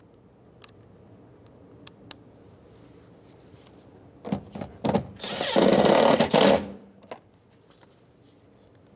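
A power screwdriver gives two short spurts, then runs for about a second and a half, driving a door trim panel screw home, and stops abruptly. Faint handling clicks come before it.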